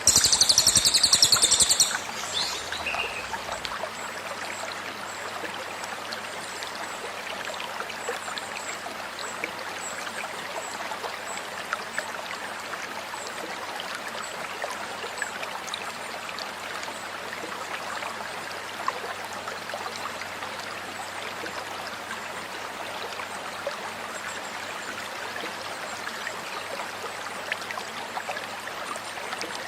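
A cililin songbird gives its 'tembakan', a loud burst of rapid, high, piercing notes lasting about two seconds, with one short note just after. A stream trickles and babbles steadily under it.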